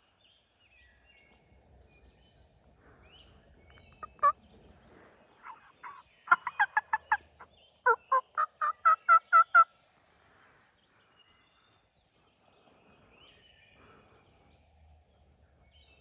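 Wild turkey calls: a single sharp note about four seconds in, then two quick runs of loud, evenly spaced sharp notes, the second of about ten, ending near the tenth second.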